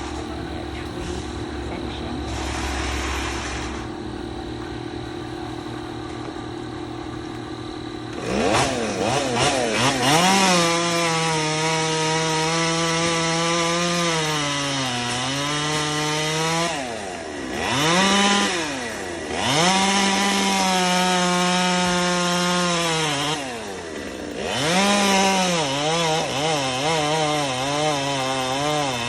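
Two-stroke chainsaw idling, then revved up about eight seconds in and run at full throttle cutting through tree limbs. Its pitch sags under load and drops off twice between cuts before it is revved up again.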